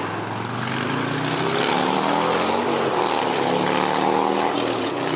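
An engine running steadily, its pitch drifting down and then back up.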